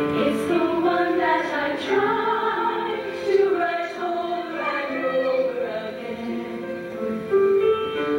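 All-female choir singing held notes in several parts at once, the chords moving every second or so.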